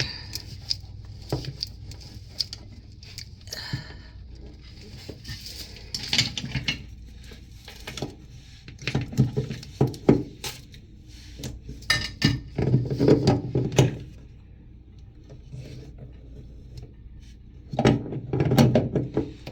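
Irregular clicks, taps and knocks of hands working on plastic toilet tank fittings while tightening a connection, with heavier bursts of clattering several times.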